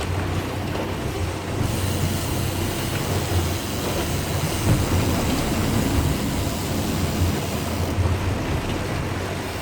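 Boat engine running steadily, with wind and rushing water noise over it.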